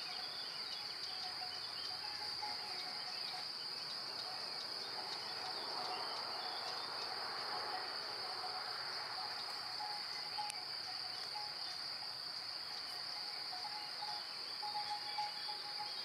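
Meadow insects stridulating: a steady, unbroken high-pitched chirring drone.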